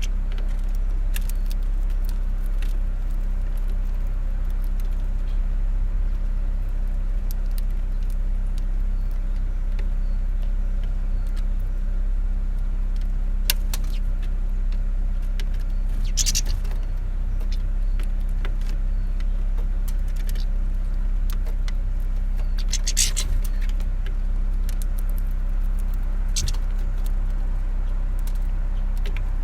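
A steady low rumble, like road traffic, runs evenly throughout, with a few short high twitters and clicks from small finches at a feeder, clearest about halfway through and again about two-thirds through.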